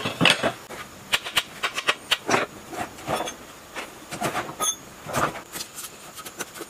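Irregular metallic clanks, knocks and scrapes from handling the cast-iron housing and parts of an old generator and working on it with hand tools, a dozen or more sharp hits at uneven intervals.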